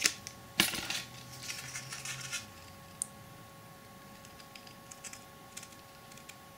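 Thin white card being handled and snipped with small scissors: a couple of sharp clicks and rustles near the start, a single click about three seconds in, then a few faint light snips.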